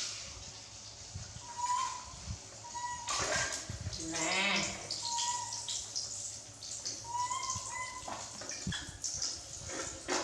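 Short, high animal calls repeating every second or two, with a few bursts of rustling noise between them.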